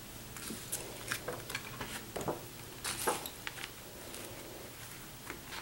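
Thick glossy paper of a vinyl album's large photo booklet rustling and tapping as its pages are handled and opened, in a quick scatter of short crinkles and taps that thins out after about three and a half seconds.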